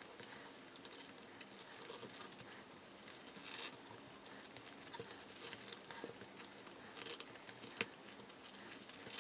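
Faint scraping and rustling of scissor blades being worked into tightly woven rolled-newspaper tubes to widen a gap, with a few sharp clicks. The weave is so dense that the blades have to be forced through.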